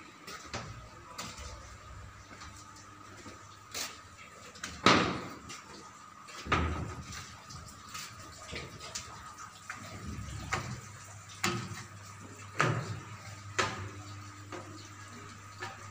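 Irregular metallic knocks and clanks, about one a second, from footsteps on steel deck plates and ladder rungs in a ship's engine room, the loudest a little after four seconds in. A steady low hum and a faint steady whine run underneath.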